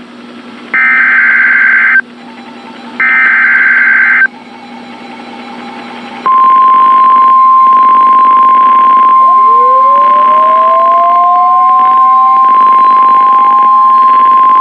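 NOAA Weather Radio SAME alert header: two harsh one-second bursts of data screech, the last two of its three repeats, then about six seconds in the steady 1050 Hz warning alarm tone starts and holds, the signal that a warning broadcast follows. A fainter tone glides upward beneath it from about nine seconds in.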